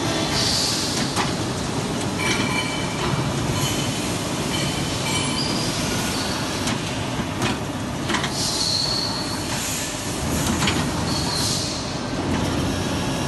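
CNC pipe-bending machine running, a steady mechanical noise with scattered clicks and a few brief high squeals.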